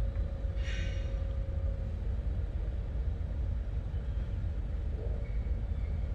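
Steady low rumble of background noise, with a brief high-pitched squeak about a second in.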